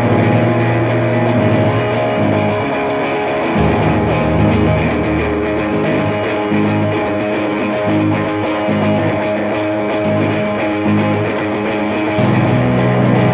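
Rock-style background music with guitars and bass, its low notes shifting a few times.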